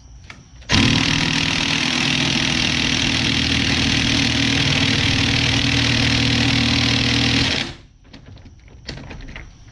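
Impact wrench running steadily for about seven seconds, starting and stopping abruptly, as a fastener is tightened on the car.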